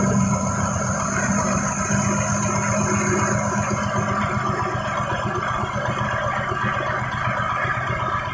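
Corn cob grinding machine running steadily: a constant motor hum under a rough mechanical rattle.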